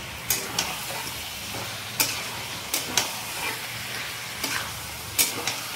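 Freshly added chicken pieces sizzling in masala in a metal kadai while being stirred with a flat metal dosa turner, which knocks and scrapes against the pan about seven times.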